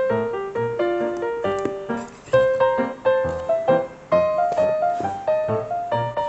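Background music: a quick keyboard melody of short, stepping notes over a bass line.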